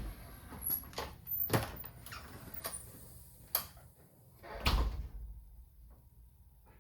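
A door or cupboard being handled: a string of separate knocks and thumps, the heaviest thump about five seconds in.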